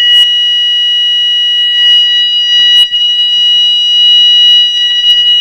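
Flood alarm's red electronic sounder going off with a loud, steady, high-pitched continuous tone, its default continuous setting. It signals that the water sensor has touched water and the alarm has triggered.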